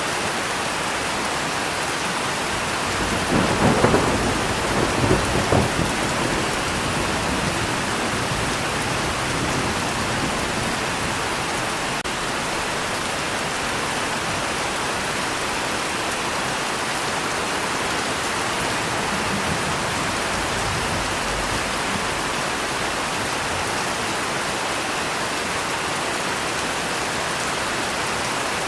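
Steady rain falling, with a thunderclap about three seconds in that breaks in several sharp cracks over a few seconds before the rain carries on alone.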